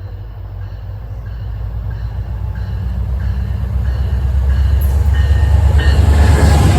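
Diesel-powered passenger train approaching, its low engine rumble and wheel noise growing steadily louder until it is close by near the end.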